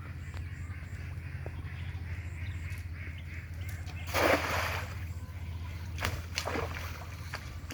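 Water splashing at a pond during net hauling, with one loud splash about four seconds in and a few shorter splashes later, over a steady low hum.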